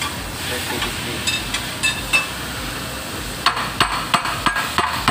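Hammer blows: a few lighter taps, then from about three and a half seconds in a quick run of sharp strikes, about three a second, over steady workshop noise.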